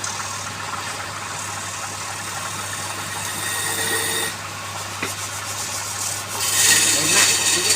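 A tool rubbing and scraping across wood over a steady machine hum; the scraping gets louder about six and a half seconds in.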